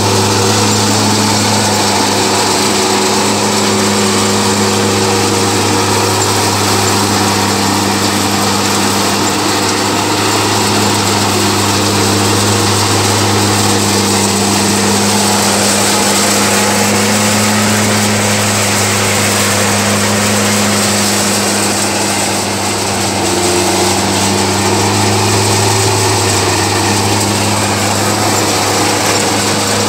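Tractor-powered farm machine for straw and chaff running steadily at working speed: a continuous engine drone with a low hum, overlaid by the rush of chaff and dust moving through the machine.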